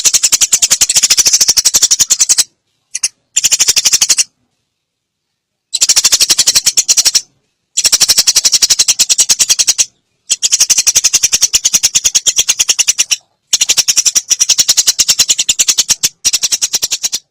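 Eurasian tree sparrow chattering: loud, rapid runs of dry, high chirps, each run lasting about one to three seconds, with short silences between them.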